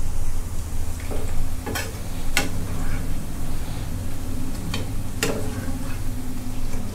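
Batter-coated meatballs deep-frying in palm oil, a steady sizzle, while a metal slotted skimmer stirs through the oil and knocks sharply against the pan about five times.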